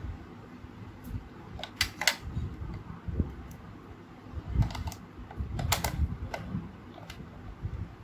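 Scattered sharp plastic clicks and handling noise from a small green plastic retro typewriter-style wireless device being turned over and fingered in the hands. There are a couple of clusters of clicks, near the second second and around five to six seconds in.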